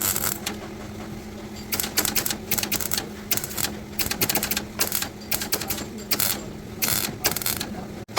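Sharp irregular taps and clicks on car-body sheet steel, coming in quick clusters with short pauses, over a steady low hum.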